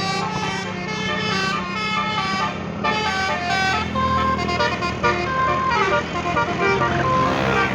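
Basuri 'telolet' multi-tone bus horn playing a fast melody of musical air-horn notes that step up and down in pitch several times a second, over the bus engine's steady low drone.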